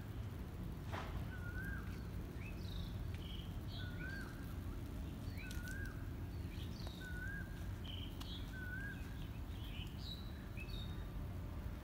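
Birds calling outdoors over steady low background noise. One bird repeats a short rising-and-falling whistled note every one to three seconds, and other birds add higher chirps in between.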